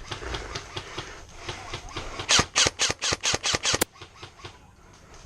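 Airsoft gun firing a quick string of about eight sharp shots, roughly five a second, a couple of seconds in, with fainter shots popping in the background around it.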